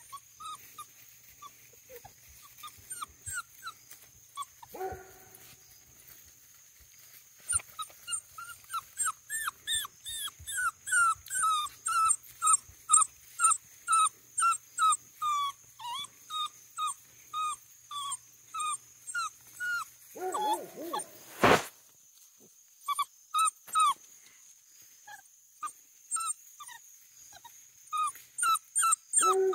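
Basset hound puppy whimpering: a run of short high squeaky whines, sparse at first, then about two a second for several seconds, then scattered again. A single sharp knock a little past the middle.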